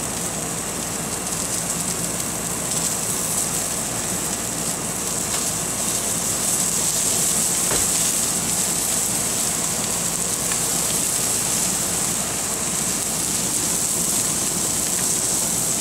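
Herb butter sizzling on salmon fillets on a hot grill: a steady hiss like rain.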